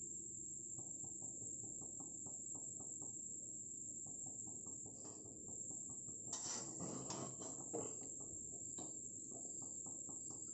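Spatula tossing and scraping cooked chowmein noodles in an aluminium kadhai, with faint light ticks early on and louder scraping about six to eight seconds in. A steady high thin whine runs underneath.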